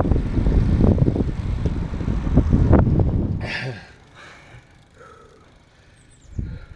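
Wind buffeting the microphone in a loud, ragged rumble that stops about three and a half seconds in. A short low thump follows near the end.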